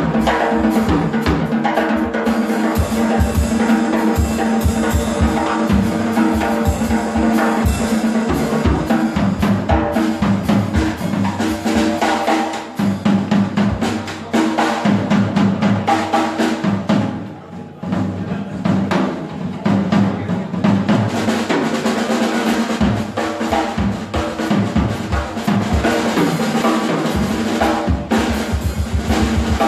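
Live band with the drum kit to the fore, playing fast snare rolls and bass-drum figures over a held chord from the other instruments. The drums thin out briefly about halfway through, then pick up again.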